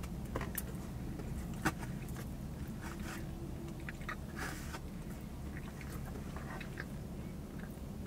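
Close-up mouth sounds of a person chewing a soft, frosted cinnamon roll, with scattered small wet clicks and one sharper click about one and a half seconds in, over a steady low hum.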